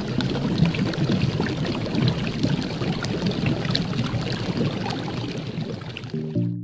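Dense, steady rushing noise with scattered small ticks, from a channel-intro sound effect; a few pitched music notes begin near the end.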